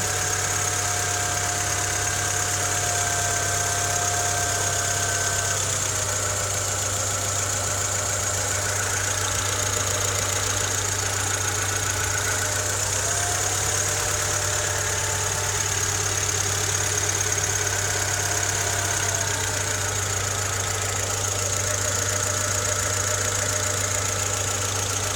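Honda Civic EK3's D15Z6 1.5-litre four-cylinder engine idling steadily, with the engine knock that the owner is recording it for.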